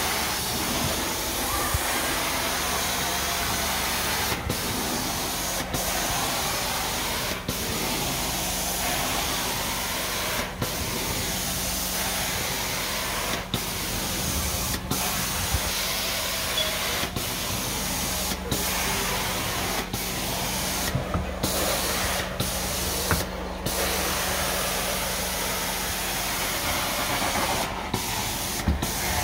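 Carpet steam-cleaning (hot-water extraction) wand working a carpet: a steady loud hiss of spray and vacuum suction over a low steady hum, dropping out briefly many times between strokes.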